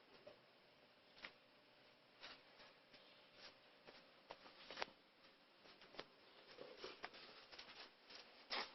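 Near silence with faint, irregular small clicks and taps scattered throughout, a couple of slightly louder ones near the end.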